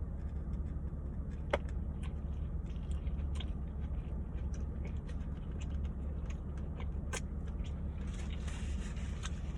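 Chewing and small mouth clicks of someone eating a steak and cheese sandwich, over a steady low rumble. A soft rustling hiss comes in about eight seconds in.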